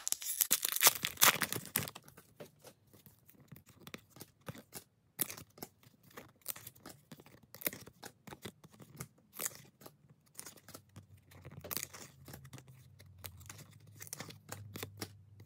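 Trading-card pack wrapper torn open in a burst of tearing for about two seconds, then the cards are slid and flicked one behind another, making many short, soft clicks.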